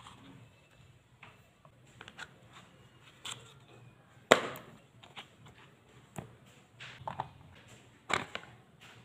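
Clicks and taps of a hard plastic gouache paint case being handled, with a sharp snap about four seconds in as the latch is unclipped, and another click near the end as the lid is opened.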